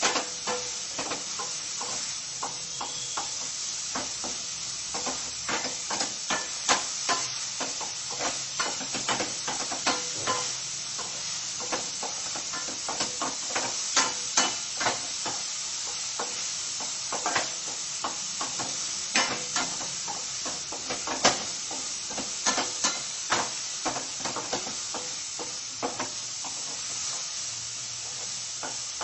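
Spatula stirring chopped onions in a surgical stainless steel pan, scraping and clicking irregularly against the metal, over a steady hiss of the onions dry-sautéing without oil.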